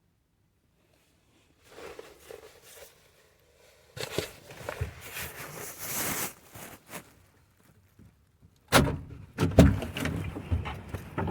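A van door being opened and shut as someone steps out, with rustling in the middle and a couple of loud thuds about nine seconds in.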